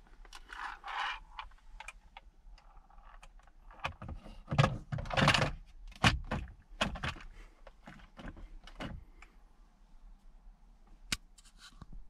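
Plastic dashboard drawer of a Suzuki Alto Lapin being handled and slid in and out by hand: a scatter of sharp plastic clicks and knocks with a few short scraping slides, busiest in the middle.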